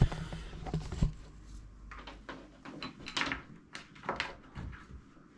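Handling noise of a power cable being fished up behind a desk: scattered light knocks, clicks and rustles, with a sharper knock about a second in.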